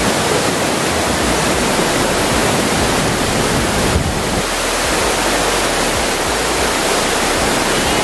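Waterfall rushing close by: a loud, steady, even noise of falling water.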